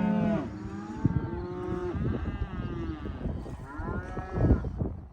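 Cattle mooing and bawling: several drawn-out calls, one after another and partly overlapping.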